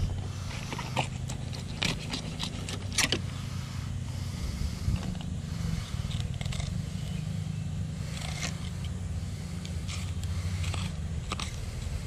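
Fillet knife cutting and scraping along a sheepshead's scaled body on a plastic cutting board: a run of sharp clicks and scrapes, bunched in the first few seconds and again near the end. A steady low hum runs underneath.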